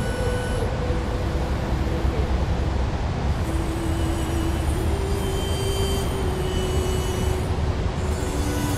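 Waterfall roaring steadily as white water cascades over rock ledges, with faint background music of held notes that change pitch every second or two.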